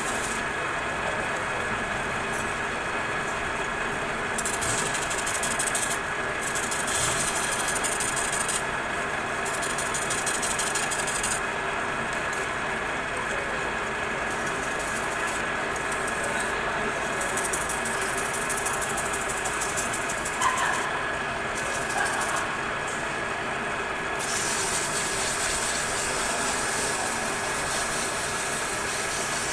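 Metal lathe running steadily, with a high hiss that comes and goes in spells of a few seconds. A couple of brief clicks come near the end.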